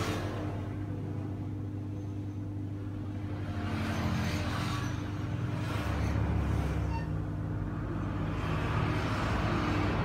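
Hot air rework gun blowing steadily on a smartphone circuit board while a small chip is soldered in place, over a low steady hum. Road traffic passes in the background, swelling twice, about four and nine seconds in.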